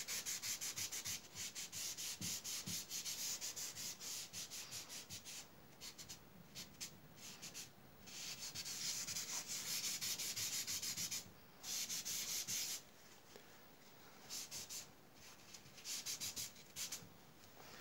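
Folded paper tissue rubbed back and forth over pencil graphite on drawing paper, blending the shading: quick, dry rubbing strokes, several a second, in runs broken by short pauses.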